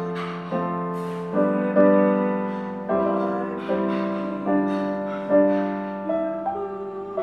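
Digital piano, a Roland RD-64, playing slow sustained chords, a new chord struck about once a second over a held low note.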